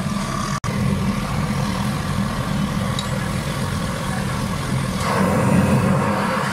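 Steady low roar of a commercial gas stove burner heating large aluminium pots of milk tea and kahwa, with a brief dropout about half a second in.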